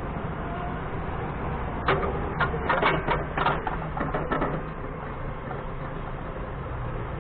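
Doosan 4.5-tonne forklift's engine idling steadily, with a quick run of sharp knocks and clanks from about two to four and a half seconds in.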